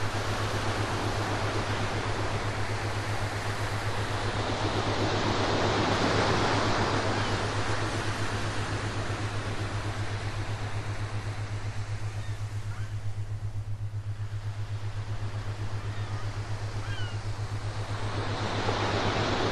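Ocean surf: waves swell and recede slowly, the wash building about six seconds in, ebbing a little past the middle, and rising again near the end, over a steady low hum. A few faint short chirps are heard in the second half.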